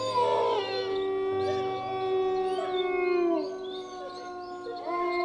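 Several canines howling together in long, held notes. The howls slide down and fade about three and a half seconds in, and a new howl rises near the end.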